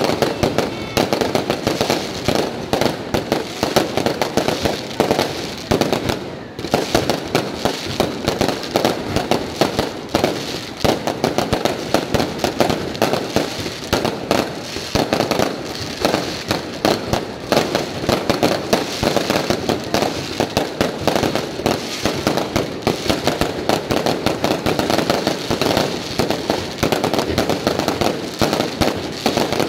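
Fireworks display: a dense, unbroken barrage of bangs and crackling from rockets and bursting shells.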